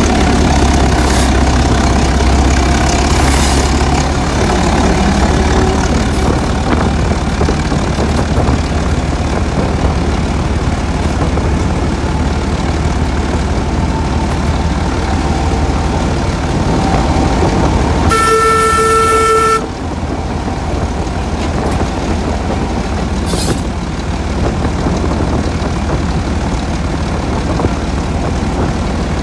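Class 08 diesel shunter's English Electric six-cylinder engine running steadily, with the locomotive's horn sounding once for about a second and a half about two-thirds of the way through.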